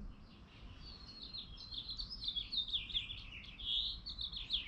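Songbird singing: a rapid run of short, high chirps, each sweeping downward, beginning about a second in and continuing.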